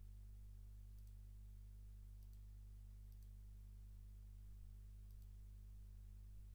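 Faint computer mouse clicks, four of them spread a second or two apart, each a quick press-and-release pair, over a steady low hum.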